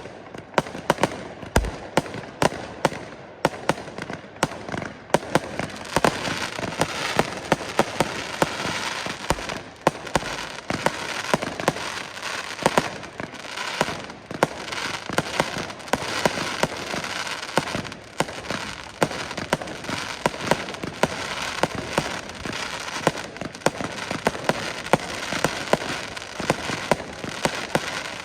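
A Weco 'Hard Rock Overture' 240-shot, 20 mm firework battery firing, its shots coming in rapid succession. From about six seconds in, a dense steady hiss fills in beneath the shots.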